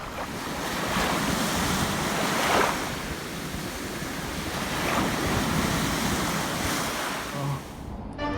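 Wind blowing across the microphone, a steady rushing that swells and eases in gusts, cutting off just before the end.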